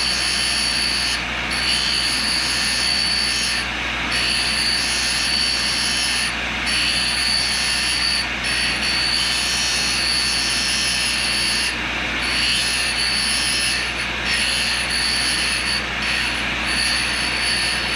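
Tool and cutter grinder's wheel grinding a high speed steel single-lip countersink as the cutter is hand-rotated and fed into it, resharpening a dull edge. A steady grinding hiss with a high ringing tone that drops out briefly every two seconds or so.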